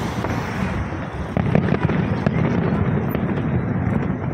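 Aerial fireworks bursting in quick succession: a continuous rumble of bursts with many sharp crackling pops, thickest in the middle.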